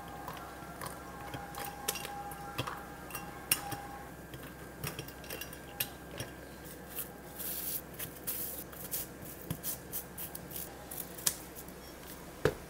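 Ice cubes clicking and knocking against plastic as an iced latte is poured from a plastic cup into a plastic bottle, followed by scattered clicks and a brief rustle as the bottle is capped and its cap wrapped in plastic film, with a few sharper knocks.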